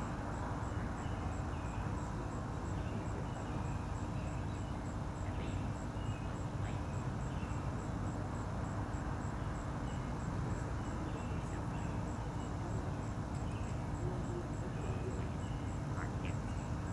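Dawn outdoor ambience: a steady low background noise with faint, scattered short bird chirps, and a faint, high, even ticking about three times a second.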